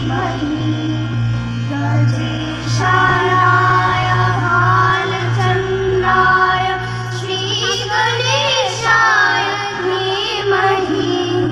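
A group of children singing a Hindu devotional song together into stage microphones, with a steady low hum underneath.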